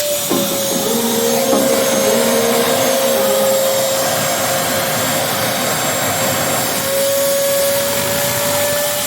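WAP GTW Inox 12 wet-and-dry vacuum cleaner running steadily, a loud airflow rush with a strong motor whine. The whine drops slightly in pitch just after the start and climbs back about seven seconds in.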